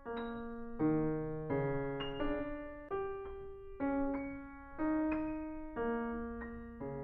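Solo piano playing a slow passage of chords, a new chord struck about once a second and left to ring and fade before the next.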